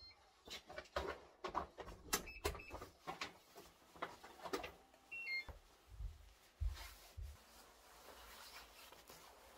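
Faint clicks, knocks and rustling of a person coming in through an apartment front door: the door and its handle, footsteps, a paper shopping bag and a padded jacket. About five seconds in, a short electronic chime of a few stepped notes, typical of a digital door lock locking.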